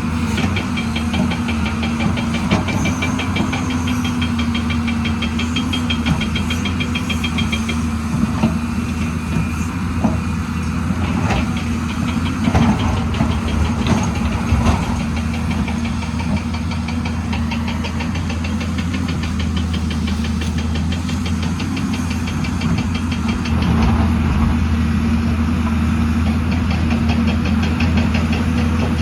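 Hyundai excavator's diesel engine running steadily with a fast, even clatter, a few knocks midway through, and louder for the last few seconds.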